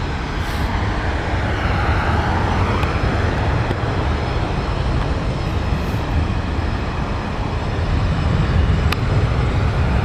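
Jet aircraft engines heard across the airfield: a steady, loud rumble.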